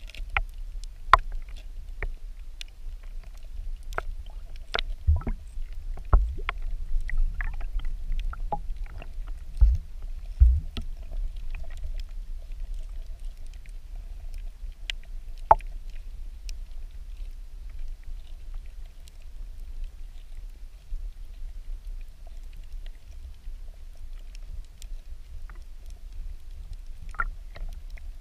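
Muffled underwater sound picked up by a submerged camera: a steady low rumble of water, with scattered sharp clicks and ticks, several louder ones in the first half.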